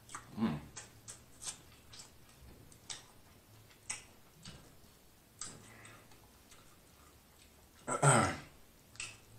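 Close-miked mouth sounds of eating saucy seafood: wet lip smacks and chewing clicks, one every half second to a second, with a louder short voiced sound about eight seconds in.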